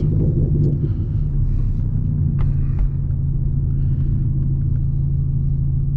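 2010 Hyundai Genesis Coupe's turbocharged four-cylinder engine running steadily at light throttle while driving, heard from inside the cabin; the engine is still warming up after sitting cold. Two faint clicks come a little before the middle.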